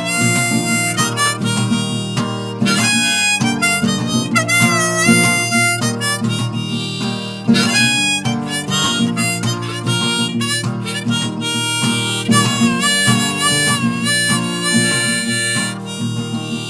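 Harmonica solo, with notes bending and sliding, over a strummed acoustic guitar, in an instrumental break of a folk-pop song.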